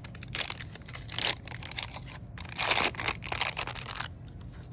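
A packet of Model Magic modelling clay being torn open and crinkled by hand: irregular crackling rustles, loudest about a second in and again near the middle.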